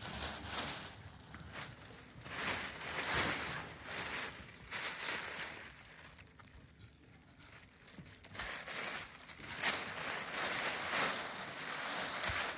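Crumpled tissue paper crinkling and rustling as kittens climb and burrow through a pit of it, in irregular bursts with a pause of about two seconds midway.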